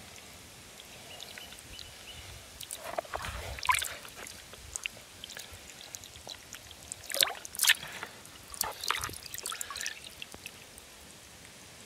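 Water dripping and splashing into a pond from a wet hand holding a goldfish, in a few scattered bursts of drips and small splashes.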